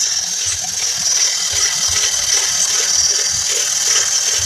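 Handheld electric power tool running steadily at full speed with a high hiss and irregular low rattling knocks.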